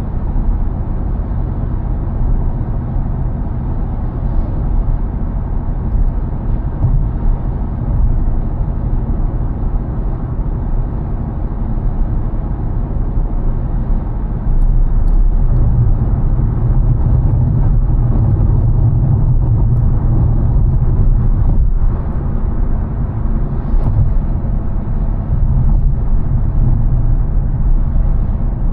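Car driving on a road: a steady low rumble of tyres and engine, louder for several seconds about halfway through.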